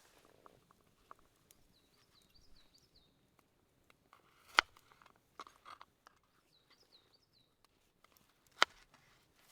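A bird singing a quick series of short high notes, twice, over quiet woodland background, with scattered small clicks and two sharp knocks about four seconds apart, the loudest sounds.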